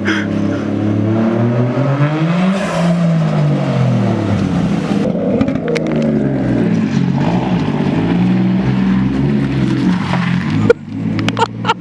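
Toyota JZX90's engine revving up and down as it is driven, its pitch rising and falling several times. A sharp, loud knock comes near the end.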